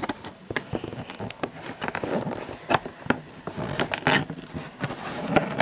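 Cardboard box being pried open by hand: irregular crackling, clicking and scraping of the cardboard flaps.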